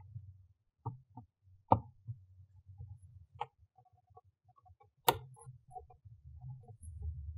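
Plastic trim clips at the back of a Tesla Model S frunk clicking and snapping as they are worked loose by hand: a scatter of sharp clicks, the loudest about five seconds in, with low handling noise between them.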